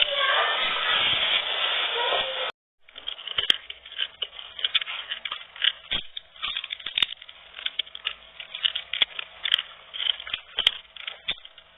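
Close-up crunching and chewing of crispy deep-fried pork intestine (chicharon bulaklak). A dense crackle runs until a short break about two and a half seconds in, after which come sharper, scattered crunches and clicks.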